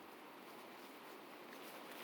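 Near silence: faint steady background hiss with a few soft clicks.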